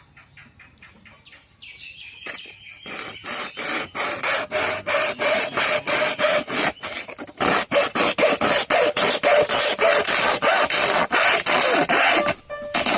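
Rapid back-and-forth rasping strokes of a hand tool working material, like sawing or filing, several a second, starting faint and getting louder, with a brief break near the end.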